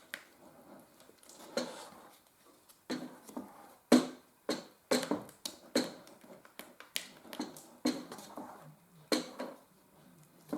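Sealer being stirred in an opened metal paint tin: a string of irregular clicks and knocks as the stirrer hits the tin's sides and bottom, with faint liquid swishing between.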